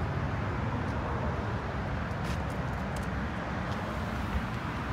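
Nissan Titan XD's turbo-diesel V8 idling, a steady low rumble.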